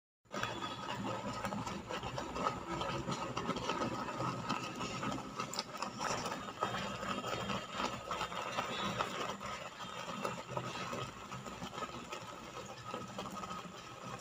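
Flaxseeds and water boiling in an aluminium pot on a gas stove: a steady, dense bubbling crackle that eases slightly in the last few seconds.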